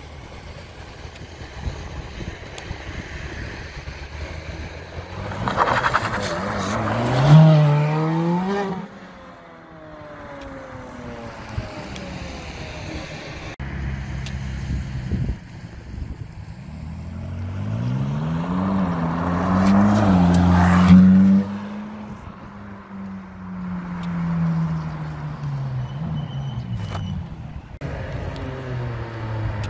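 Two Ferrari sports cars accelerating hard past one after the other. Each engine climbs steeply in pitch to a loud peak, the first about seven seconds in and the second about twenty seconds in, then drops away as the car goes off. The second car's engine note cuts off suddenly at its peak, then fades with a falling pitch.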